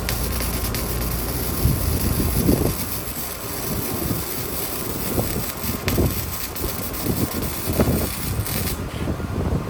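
Gasless flux-core MIG welder arc crackling and hissing steadily while laying weld on sheet metal, cutting off near the end.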